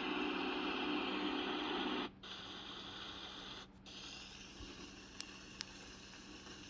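White noise sound machine playing a steady hiss with a low hum in it; about two seconds in it cuts out for a moment and switches to a quieter noise track, with another brief dropout a little later. Two faint short high ticks follow.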